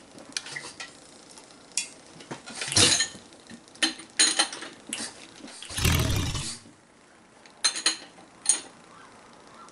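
Metallic clinks and knocks of hand-crank tooling at the front of a rebuilt Corvair air-cooled flat-six, with one heavier, deeper burst lasting under a second about six seconds in.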